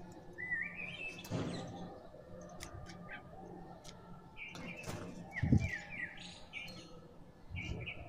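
Birds chirping in short runs of quick, stepped notes, over sharp clicks of a crow's beak pecking grain off a concrete floor. A few low thumps, the loudest about five and a half seconds in.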